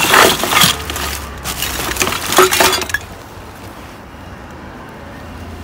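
Glass canisters and jars clinking and clattering against one another in a garbage bag as it is handled, several sharp clinks over the first three seconds.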